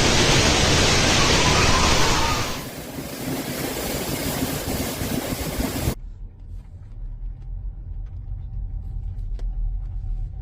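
Storm wind rushing hard over the microphone, easing after about two and a half seconds. About six seconds in it cuts off abruptly to a steady low, engine-like hum with a faint thin whine.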